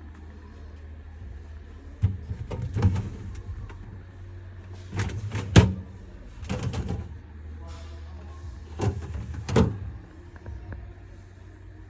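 Bosch KGN39AWCTG fridge freezer doors and drawers being opened and handled: several clusters of knocks and clatters over a low steady hum.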